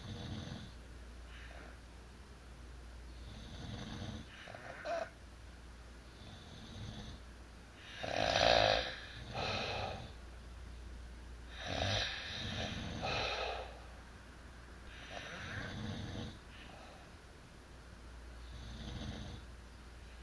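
Two sleeping people snoring, a snore about every three to four seconds, the loudest ones in the middle.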